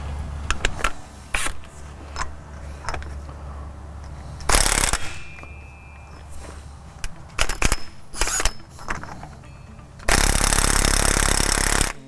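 Impact wrench with a 1¾-inch socket hammering at a truck's front axle castle nut. First come light clinks as the socket is fitted, then short bursts of hammering and a longer burst of about two seconds near the end. The nut is overtightened and is fighting being broken loose.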